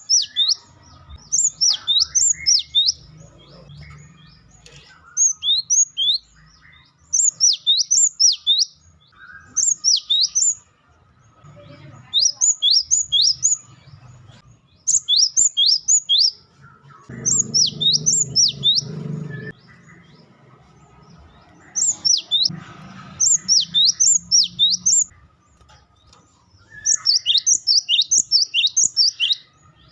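Cinereous tit (gelatik batu) giving its rapid 'wucitan' call: short, loud bursts of quick high notes, each dropping sharply in pitch, repeated every second or two.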